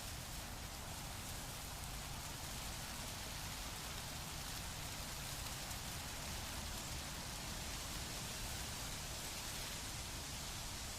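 Wind blowing through plant leaves: a steady rustling hiss with a low rumble of wind underneath, unchanging throughout.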